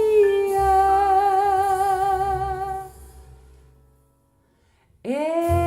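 Female voice holding one long sung note with vibrato over guitar and bass. It fades out about three seconds in, and after a second of silence the singing and accompaniment start again near the end.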